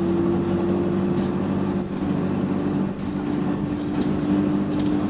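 Bus engine running with a steady hum, heard from aboard the bus; the sound briefly dips twice, about two and three seconds in.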